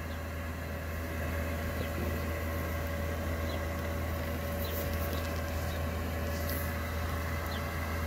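Diesel air heater running steadily on its highest setting: a steady low hum, mostly the sound of it pulling air in.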